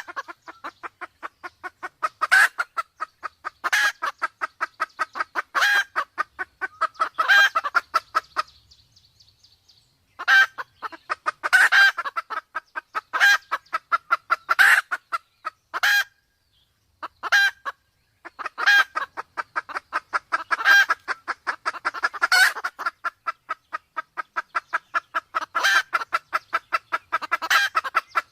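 Red junglefowl clucking in fast runs of short, sharp notes, several a second, with a louder note every second or two; the calling breaks off twice for a second or two.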